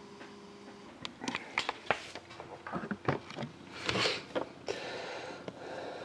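Hands handling a sealed, shrink-wrapped trading card box on a table: a run of light taps and clicks, with a brief louder rustle about four seconds in.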